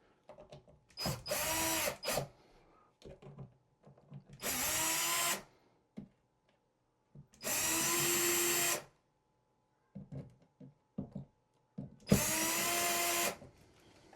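Power drill-driver run in four short bursts of about a second each, its motor whine rising as it spins up each time, with small clicks and knocks of handling between bursts: driving in screws.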